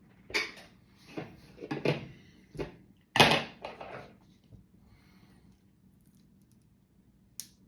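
Clicks and knocks of plastic parts from a dismantled Nokia brick phone being handled and set down, about half a dozen in the first four seconds with the loudest a little after three seconds in, then one sharp click near the end.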